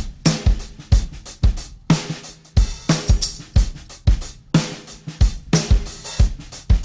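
Background music with a driving drum-kit beat: kick and snare about twice a second under hi-hat and cymbals.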